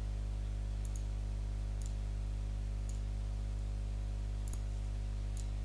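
About five faint computer mouse clicks, spaced roughly a second apart, over a steady low hum.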